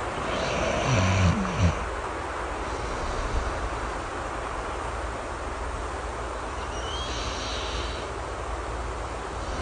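A person snoring once, a low snore about a second in, and a softer breath near the end, over steady rain.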